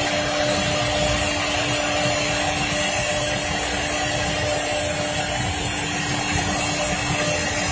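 Three-head CNC router engraving a wooden board: its spindles run with a steady hum and a high whine, with the noise of the bits cutting underneath.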